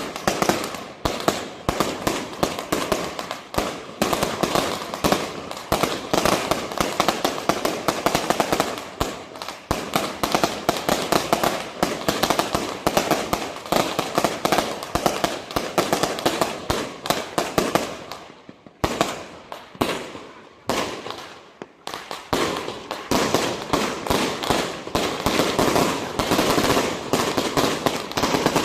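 Strings of firecrackers going off in a dense, rapid crackle of bangs, thinning to scattered pops for a few seconds about two thirds of the way through before the barrage resumes.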